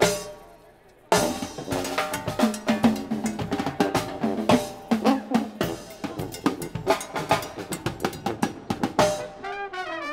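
A band hit and about a second of silence, then a mobile drum set and timbales playing a fast Latin percussion groove with dense snare, bass-drum and rimshot strikes. The brass horns come back in near the end.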